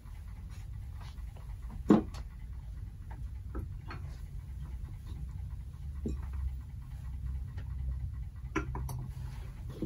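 Porcelain teacups being set onto saucers on a cloth-covered table: scattered soft clinks and knocks, the loudest about two seconds in and another near the end, over a low steady hum.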